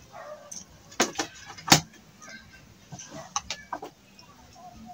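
Chickens clucking close by, mixed with several sharp clicks from eating by hand at a plate. The loudest click comes a little under two seconds in.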